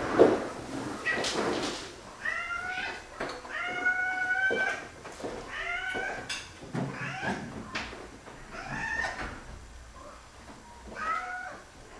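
Domestic cats meowing over and over, one call roughly every second with rising and falling pitch, as hungry cats beg at feeding time. A loud thump comes at the very start.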